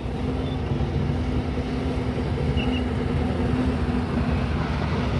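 Vintage car's engine running steadily as the car drives slowly past, a low, even drone.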